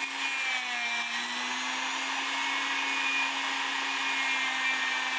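Small motorized wire brush spinning steadily as it scrubs gunk off the teeth of a clock's governor wheel. It makes a constant whine over a scratchy hiss, and the pitch sags slightly about a second in.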